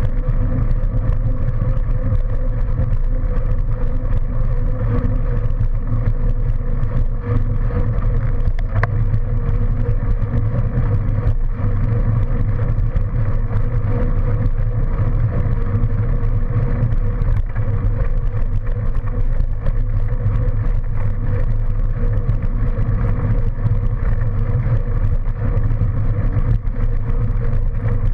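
Steady low rumble of wind buffeting the microphone of a bicycle-mounted camera and tyres rolling on a paved path, with a steady hum running through it.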